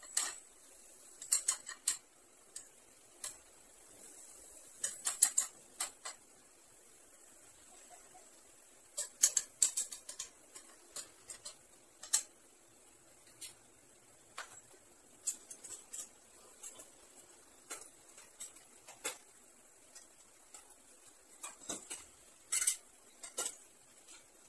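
Spatula scraping and clacking against a nonstick frying pan while diced chicken is stir-fried, in irregular bursts of sharp clicks, over a faint steady hiss.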